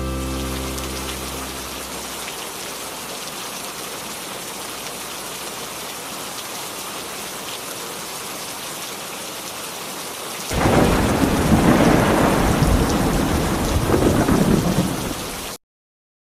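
Steady rain, with the last notes of a song fading out at the start. About ten seconds in, a loud rumble of thunder rolls for some five seconds, then cuts off abruptly.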